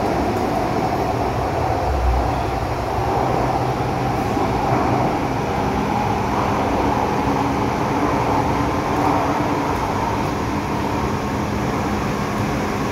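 Cabin noise of a moving MTR M-Train: a steady rumble of wheels and running gear, with a low hum that shifts higher about five seconds in.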